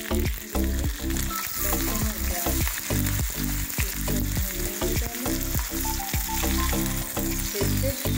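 Chopped garlic and onion frying with ajwain in hot oil in an aluminium kadhai, sizzling steadily, while a steel ladle stirs and scrapes against the pan.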